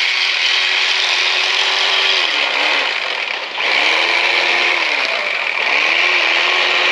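Corded electric fillet knife running and sawing through crappie fillets, its motor pitch sagging briefly several times as the blades meet resistance. It stops for a moment about three and a half seconds in, then starts cutting again.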